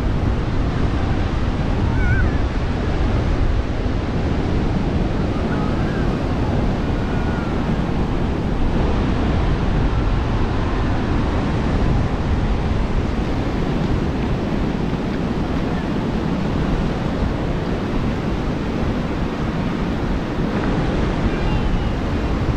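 Sea surf washing steadily onto a sandy beach, with wind rumbling on the microphone and a few faint voices now and then.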